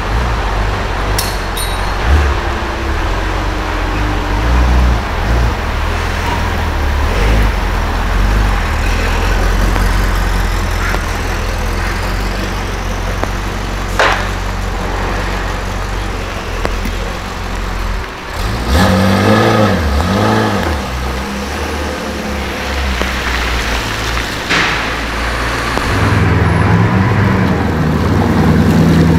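Supercar engines running on a street: a deep, uneven engine rumble. About two-thirds in, an engine revs up and down briefly, then settles into a steady idle near the end.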